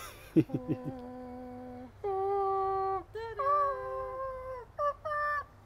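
A person humming a tune in long, steady held notes, the second note higher than the first, with a few shorter notes near the end.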